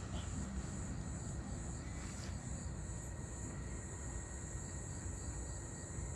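Steady outdoor background noise: a low, continuous rumble with a thin, steady high-pitched hiss over it.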